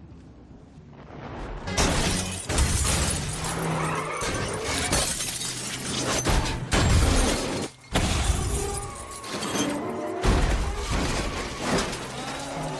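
Film crash sound effects: cars smashing into each other and a van rolling over, with glass shattering, over a music score. A quiet start, then the crashing begins about two seconds in and continues with a few sharp impacts and short breaks.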